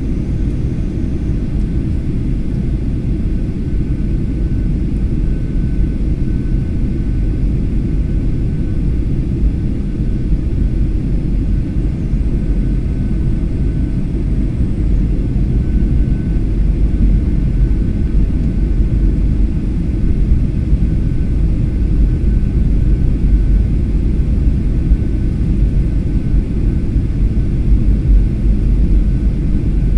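Cabin noise of a Skymark Boeing 737-800 in flight, heard from a window seat over the wing: the jet engines and airflow make a steady deep rumble that grows slightly louder over the half-minute, with a faint thin whine coming and going above it.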